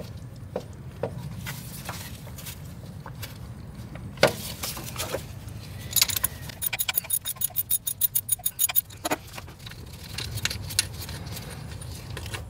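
Metal clinks and rattles as a loosened car alternator is worked back and forth in its mounting bracket, stuck in place, with a quick run of rapid rattling clicks near the middle.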